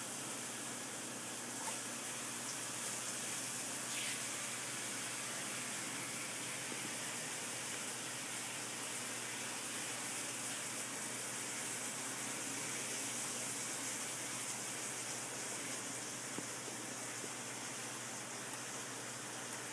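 Steady rushing hiss of air from a running tower fan, even and unbroken throughout.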